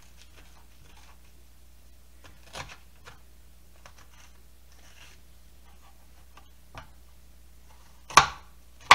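Hands scooping seeds and stringy pulp out of a halved butternut squash: faint scraping and small clicks, with a soft knock early and two sharp, loud knocks near the end.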